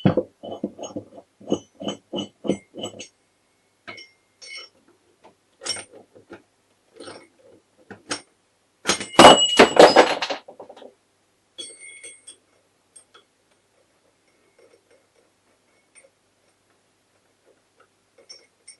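Metal parts and hand tools knocking and clinking against a motorcycle engine's crankcase during gearbox assembly: a quick run of knocks about two a second at the start, then scattered clicks and a louder clattering burst of about two seconds midway.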